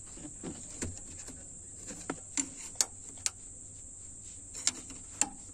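Irregular sharp clicks and knocks of a metal hand tool working against parts in a car's engine bay, about a dozen, a few of them louder. Behind them is a steady high chirring of crickets.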